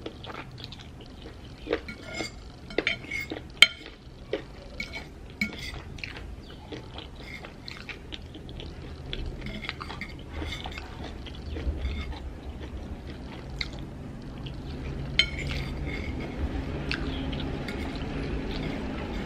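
A metal fork clinking and scraping on a ceramic plate as noodles are picked up and eaten: a string of sharp clicks over the first few seconds, then scattered clinks.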